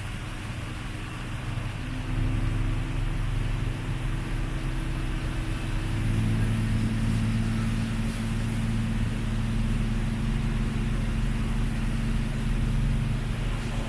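Small passenger boat's engine running steadily under way, picking up speed twice: about two seconds in and again about six seconds in, with a steady hum above.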